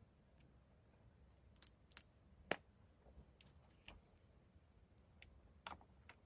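Sparse small clicks and taps from makeup containers being handled, about six in all, the loudest about two and a half seconds in.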